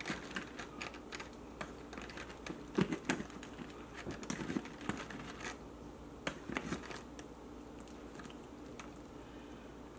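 Metal knife and fork cutting into a soft, sauce-covered wet burrito, giving irregular clicks and scrapes against the takeout container, thinning out near the end.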